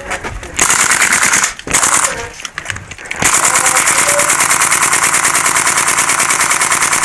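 Airsoft rifle firing on full auto, a fast even rattle of shots. There is a short burst, a second brief burst, then a long continuous burst starting about three seconds in.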